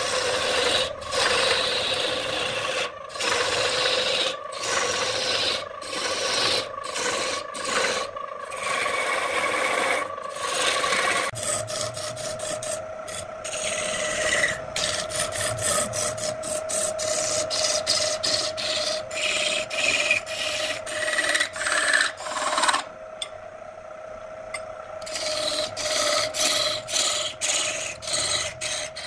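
Electric wood lathe spinning a redwood vase blank while a hand-held turning tool cuts into it: a steady motor hum under a rasping cutting noise that keeps breaking off and starting again as the tool is lifted and set back on the wood. The hum rises slightly in pitch about eleven seconds in, and the cutting stops for a couple of seconds near the end.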